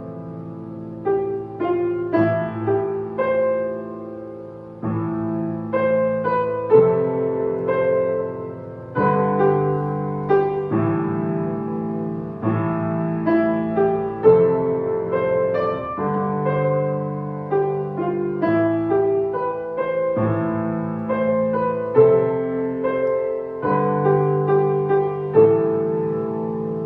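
Solo piano playing a melody over sustained, chord-based accompaniment, with notes struck and left to ring and fade.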